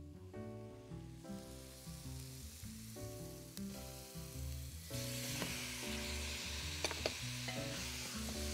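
Raw chicken cubes hitting hot oil with fried onion, garlic and spices in a pot and sizzling, with a wooden spatula stirring. The sizzle turns much louder and hissier about five seconds in as the chicken lands in the oil, with a couple of sharp clicks around seven seconds in, over background music.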